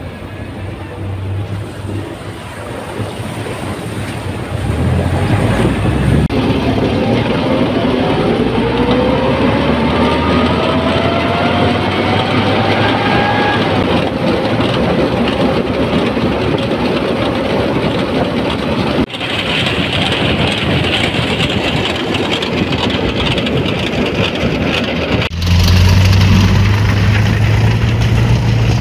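Vintage military vehicles' engines running over a series of cuts. First a sidecar motorcycle splashing through a stream, then an engine accelerating with rising pitch as a column of jeeps drives by. Near the end comes a German half-track's engine with a steady low drone.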